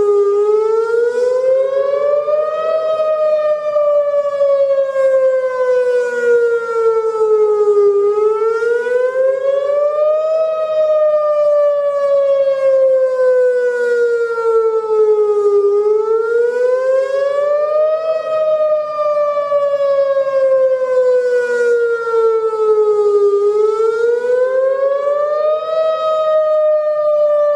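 Whelen WPS-2910 electronic outdoor tornado warning siren sounding its wail tone. The pitch rises over about two and a half seconds, then falls more slowly over about five, in a cycle that repeats about every eight seconds.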